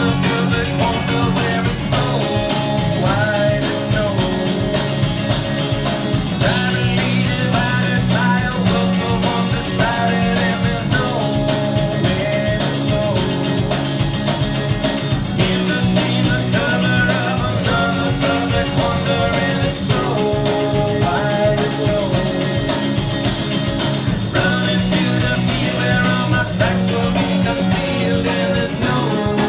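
Rock song playing, with guitar over a steady beat.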